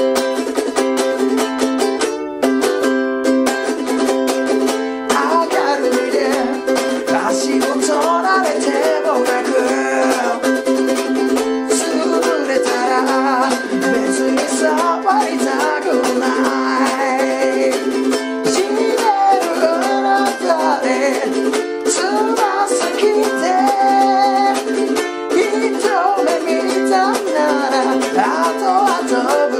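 Ukulele strummed hard in a driving sixteenth-note rock rhythm. It opens with a chopped riff of chords cut off short, and a man sings along over the strumming from about five seconds in.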